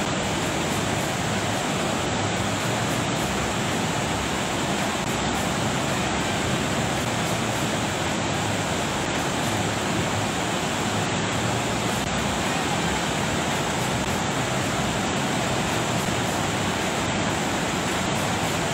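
Flooded, silt-laden mountain river rushing in spate: a steady, unbroken noise of fast water.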